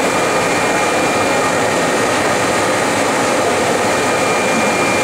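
Three-layer blown film extrusion line running: a steady, loud machine drone with a thin, steady high whine over it.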